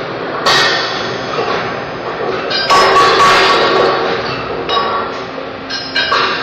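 Steel pipes clanging against one another: several metallic strikes, each ringing on after the hit, the loudest a little under three seconds in.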